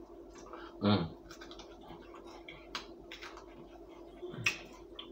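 Close-up mouth sounds of someone chewing a bacon-and-egg croissant sandwich: soft, scattered wet clicks and smacks, with a short voiced murmur about a second in.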